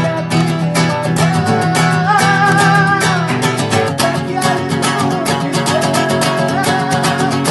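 Instrumental passage of a pop love song: guitar strumming in a steady rhythm with a melody line over it.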